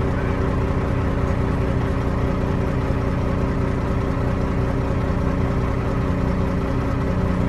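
An engine idling steadily, a constant low hum that does not change in pitch.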